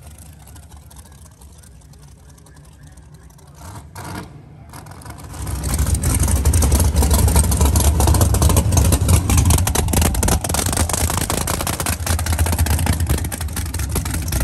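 Quiet at first, then from about five seconds in a big-block V8 drag car engine idling close by with a loud, deep, choppy rumble.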